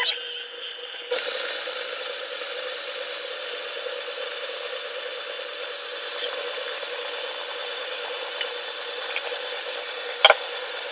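Electric stand mixer switched on about a second in and running at a steady speed, beating beaten eggs gradually into creamed butter and sugar. A single clink near the end.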